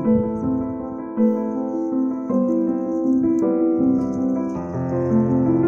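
Background piano music: a melody over held chords, each note lasting about half a second to a second.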